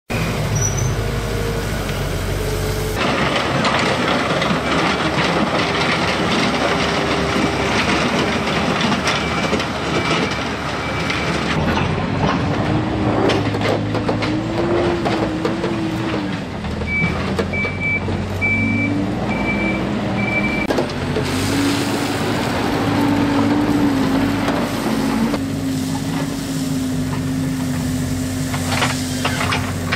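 Backhoe loader's diesel engine running and revving as it pushes and spreads gravel, with the engine note rising and falling. A reversing alarm beeps steadily in stretches, about a second per beep.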